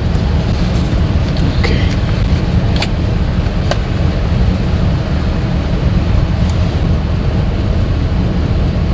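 GMC Yukon 6.0-litre V8 idling with a small misfire, a loud steady low rumble. A few light clicks come between about one and a half and four seconds in.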